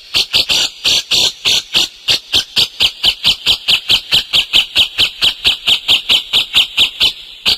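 Songbird singing a fast, even run of sharp chirps, about six a second, which stops shortly before the end.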